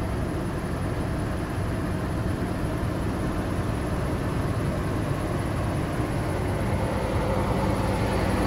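Cummins ISB inline-six diesel engine of an International 4300 dump truck idling steadily, heard from inside the cab.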